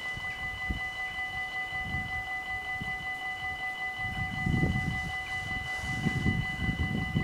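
Level-crossing bells of a Dutch Mini-AHOB crossing ringing steadily with a fast, even pulse while the barriers are down, warning that a train is coming. Irregular bursts of low rumble grow stronger after about four seconds.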